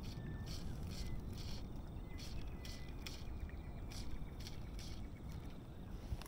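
Outdoor animal chorus: a high pulsing call repeating about twice a second, with a few faint bird chirps over a steady low rumble.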